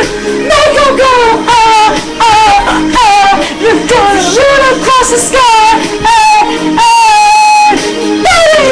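A high singing voice with sliding, wavering pitch, over pop backing music; no lyrics can be made out.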